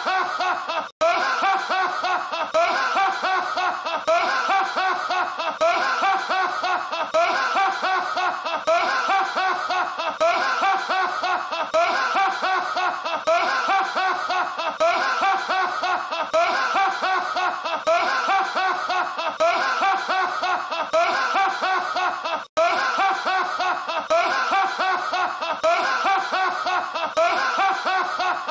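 A man laughing loudly and without a break, in a steady run of short repeated "ha"s from a looped film clip. Two brief dropouts, about a second in and about twenty-two seconds in, mark the joins where the loop restarts.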